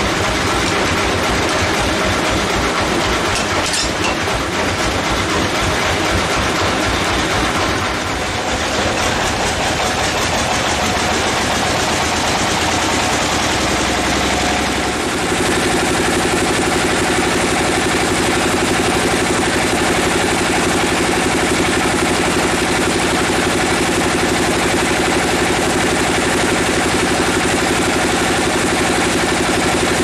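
Bandsaw mill machinery running loudly. About halfway through it settles into a steady hum with a held whine as the band saw runs and the carriage feeds a teak log into the blade.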